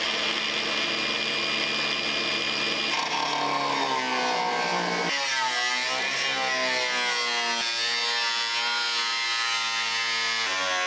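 Angle grinder with a cut-off wheel cutting through the rusted sheet steel of a 1939 Ford's A-pillar. It runs at a steady high whine, and from about five seconds in the pitch drops and wavers as the wheel is pressed into the metal.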